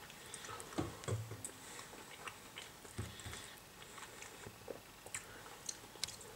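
Quiet eating sounds: chewing a mouthful of fried rice, with scattered faint clicks and taps of a metal spoon in the ready-meal tray.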